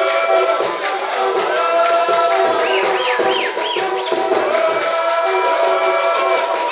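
Several voices singing together with light hand percussion keeping time, and a few quick high swooping notes about halfway through.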